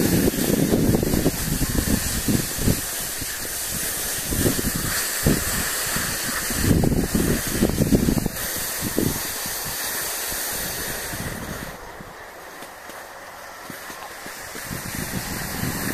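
Wind buffeting the microphone during a ski run, over a steady hiss of skis sliding on snow. The gusts ease off about twelve seconds in and pick up again near the end.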